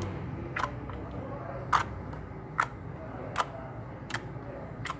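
Clear slime being worked in the hands, giving six sharp clicks about one a second.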